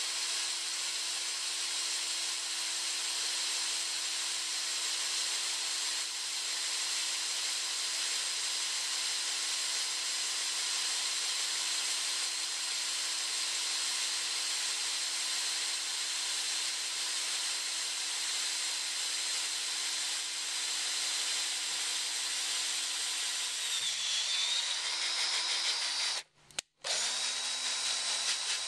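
Cordless drill running a combined drill-and-tap bit through steel plate about 3.5 mm thick, cutting an M6 threaded hole, with a steady motor whine. About three-quarters of the way through the motor note drops and wavers, the drill stops twice for a moment, then runs on at a lower pitch.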